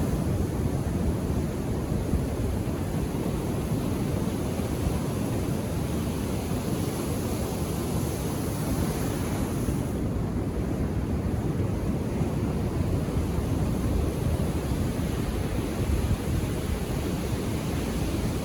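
Calm Indian Ocean surf washing steadily onto a beach, an even rush of waves.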